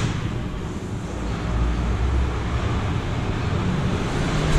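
Steady low rumble with a hiss over it, without distinct knocks or tones.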